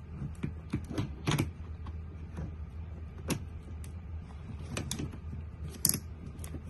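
Irregular clicks and knocks of a hard plastic and metal drill attachment being handled and fitted onto a cordless drill, with the loudest clicks about a second in and near the end.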